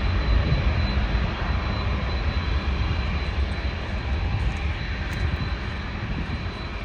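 Boeing 787's GEnx turbofan engines running at low thrust as the airliner taxis: a steady high whine over a deep rumble, easing off slightly.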